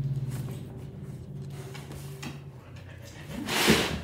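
A steady low hum with a few faint ticks, fading out after about two and a half seconds. Near the end, a louder rush of footsteps and a dog moving on a wooden floor.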